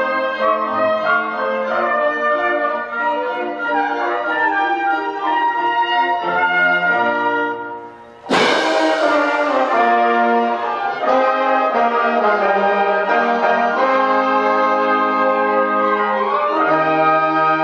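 Orchestra of strings and brass playing long held chords. About eight seconds in the music drops away briefly, then comes back in with a cymbal crash that rings on under the full ensemble.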